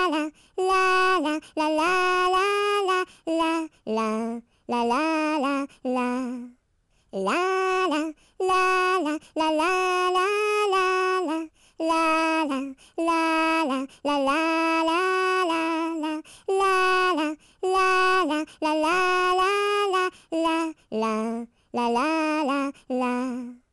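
A high voice singing a simple children's melody with no accompaniment, in short held notes and phrases broken by brief gaps, with one longer pause about a third of the way through.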